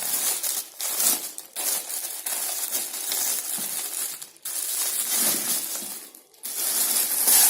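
Plastic packaging crinkling and rustling as it is handled, in irregular stretches broken by short pauses.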